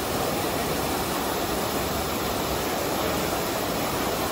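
Water of the Trevi Fountain cascading over its rock ledges and basin rims, a steady rushing splash.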